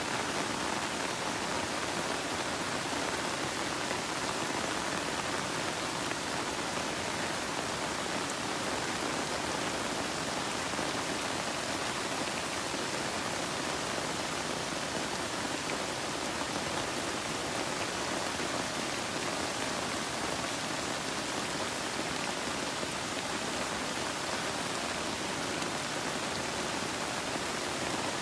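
Steady rain falling on garden plants and their large broad leaves: an even, unbroken hiss with no let-up.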